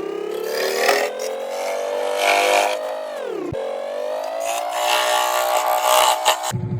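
Scroll saw running, its motor note climbing steadily in pitch, with rasping bursts as the blade cuts through wood. About three and a half seconds in, the pitch dips sharply and recovers. Near the end it gives way to a lower, steady hum.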